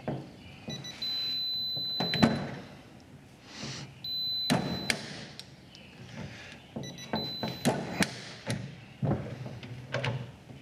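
A Quinn digital torque adapter beeping as torque is pulled through it by a bent half-inch click torque wrench, each beep ending in the wrench's sharp click, three times over, with smaller metal knocks of the tool in the vise. It is a bench check of the bent wrench's accuracy, which it fails.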